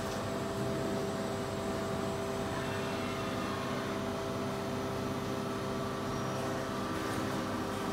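Steady machine hum from a CNC machining centre cell, a constant drone with two steady tones and no cutting or impacts.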